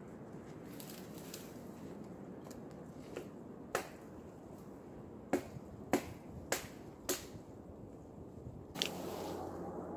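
Sharp cracks of a blade chopping into a small tree, about seven strikes in all, four of them in an even run about half a second apart midway through. Near the end a rushing noise rises.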